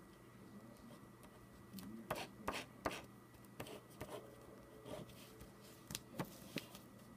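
Pencil scratching on a sheet of paper in a run of short, quick strokes, starting about two seconds in.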